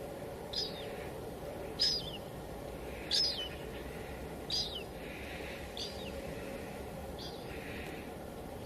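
Steady hiss of light drizzle, with a bird repeating a short falling call six times, a little over a second apart.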